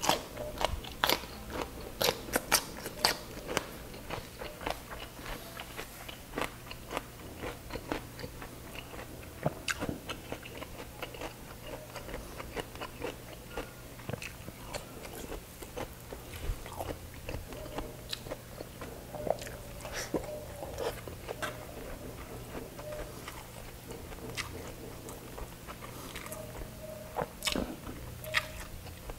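Eating sounds: crisp crunching bites into a raw cucumber stick, densest and loudest in the first few seconds, then slower chewing with scattered smaller crunches and wet mouth sounds.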